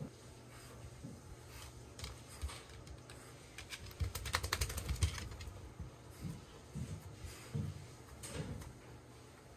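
Towel rustling and rubbing over a wet beagle's coat, with a short burst of rapid flapping about four seconds in as the dog shakes itself off.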